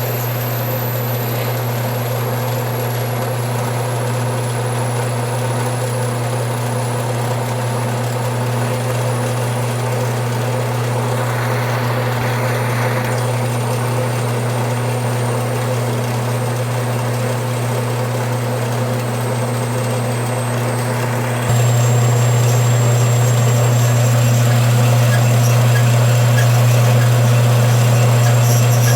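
Metal-cutting band saw running steadily, its blade cutting through a thick cast brass bar, with a steady hum and a faint high whine that slowly falls in pitch. About two-thirds through, the sound jumps abruptly a little louder and then runs on steadily.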